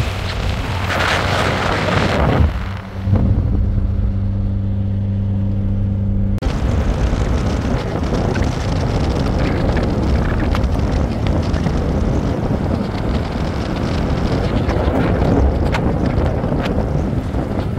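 A vehicle driving along a road, its engine giving a steady hum with road noise. About six seconds in it cuts abruptly to wind blowing across the microphone.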